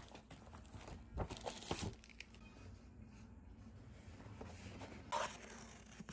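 Paper takeout bag rustling and crinkling for the first two seconds as the food containers are handled, then quieter handling with a brief knock about five seconds in.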